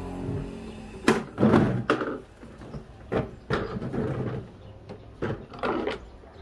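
A series of irregular hard knocks and clatters, some with a short scraping tail, as the plastic parts of a portable travel toilet are handled.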